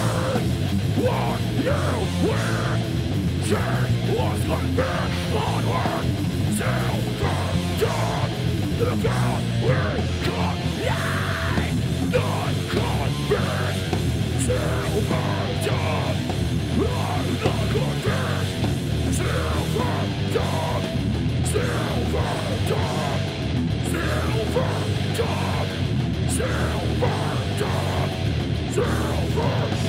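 Hardcore metal band playing live: distorted electric guitar, bass guitar and a drum kit with Istanbul cymbals, with a singer shouting the vocals into a microphone.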